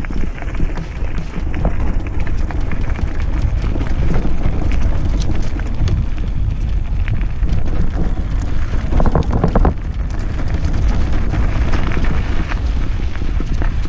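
Wind buffeting the microphone and tyres rumbling over a rough dirt trail as an electric mountain bike is ridden along, with the frame and parts rattling and knocking over the bumps; a burst of clattering about nine seconds in.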